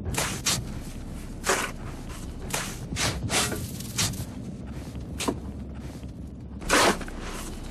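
Snow shovels scraping and scooping snow, a string of short swishing strokes roughly a second apart, the loudest near the end.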